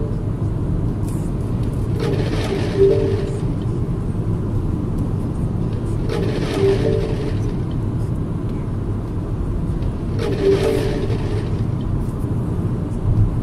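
Steady road and engine noise inside a moving car's cabin, with a short tonal sound coming back about every four seconds.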